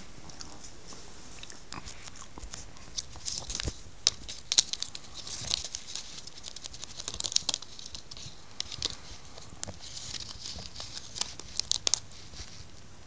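Clear plastic shirt-collar packaging crinkling and crackling in irregular bursts as a kitten grabs and bites it. A few sharp clicks stand out about four seconds in.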